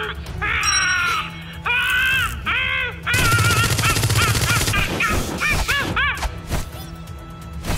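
Cartoon creature's high, squawking calls in quick arched bursts over a music score, with a loud rushing burst about three seconds in. The calls die away after about six seconds, leaving the music and a few sharp clicks.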